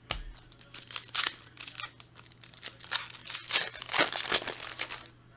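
Trading cards being handled and flicked down on a table, with crinkling of foil pack wrappers: a quick run of rustles and sharp snaps, busiest near the end.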